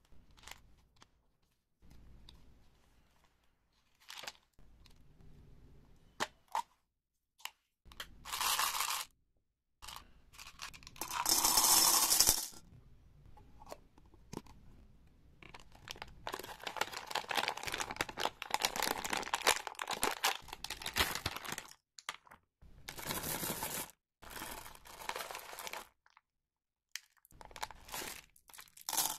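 Candy packaging being handled and opened: light clicks and taps from a plastic M&M's container and its lid, then a plastic bag of M&M's torn open and its wrapper crinkling and rustling in several bursts.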